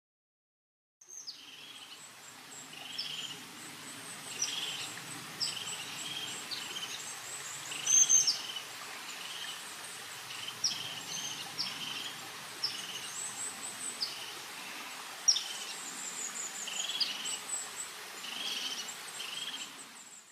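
Outdoor ambience of several birds chirping and calling, short repeated notes over a faint steady background noise, with one sharp call about eight seconds in the loudest. It starts about a second in and cuts off suddenly.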